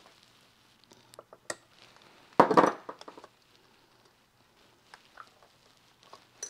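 Hands and pliers working fuel tubing onto a chainsaw's carburettor: scattered small clicks and taps, with one louder scraping rustle about two and a half seconds in.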